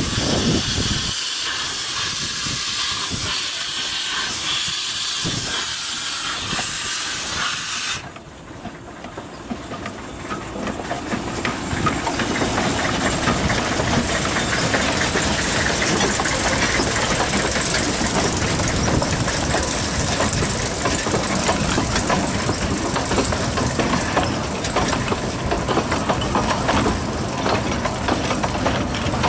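A steady high hiss that cuts off suddenly about eight seconds in, then a W. G. Bagnell 0-4-0 saddle-tank narrow-gauge steam locomotive coming up and passing close, hissing steam, followed by its carriages clicking and rattling over the track.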